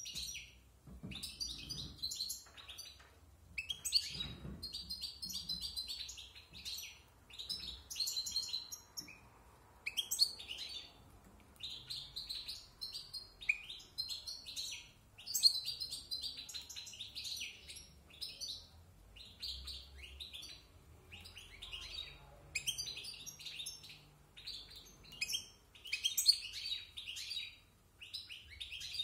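European goldfinch singing its varied, rapid twittering song in phrases separated by brief pauses; it is a bird of about a year rehearsing its song.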